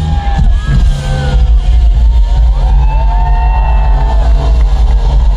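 Loud live concert music through a festival sound system: a heavy, steady bass beat with a gliding melody line over it.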